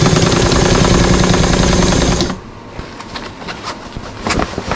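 1969 electric sewing machine running at speed, the needle stitching through cushion fabric in a fast even rhythm with a steady motor hum, then stopping abruptly a little over two seconds in. Afterwards there are only a few light clicks and rustles as the fabric is moved.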